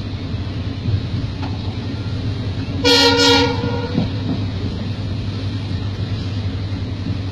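Steady running rumble of an Indian passenger train heard from inside a coach, with one short horn blast about three seconds in.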